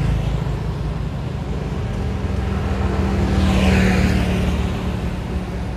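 A motor vehicle passing on the road: a steady engine hum that swells to a peak about three and a half seconds in, then fades away.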